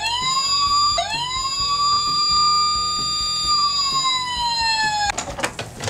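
Toy police car's electronic siren, set off by a press on its roof: a wail that rises, starts over and rises again about a second in, holds steady, then slowly falls and cuts off after about five seconds.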